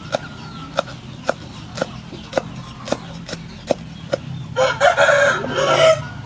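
Cleaver chopping red chilies on a wooden chopping board, sharp knocks about twice a second, then a rooster crows loudly for over a second near the end.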